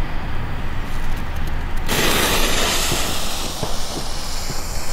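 A burning firework fuse starts hissing loudly about two seconds in, then dies down to a softer sputtering hiss with a few small crackles, over a steady low rumble of background noise.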